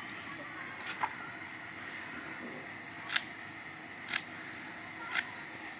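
Green onion stalks being sliced on a bonti's upright blade: crisp snapping cuts, two in quick succession about a second in, then three more about a second apart.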